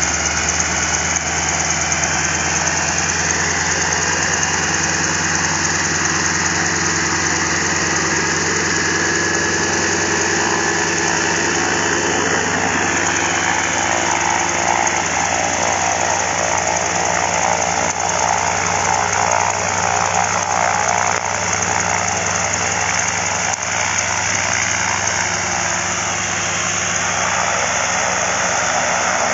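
PZL M-18A Dromader's nine-cylinder radial engine running steadily at idle on the ground, propeller turning.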